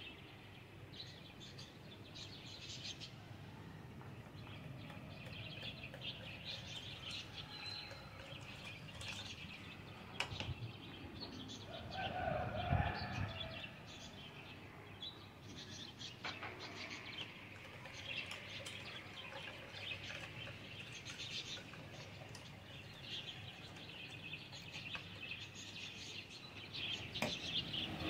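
Small birds chirping and twittering over and over, with one louder, lower sound about halfway through.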